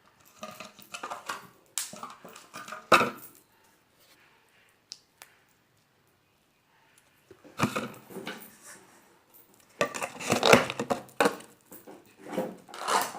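Slime being squeezed and poked by hand, giving runs of wet clicks and pops. They stop for about four seconds in the middle, then start again.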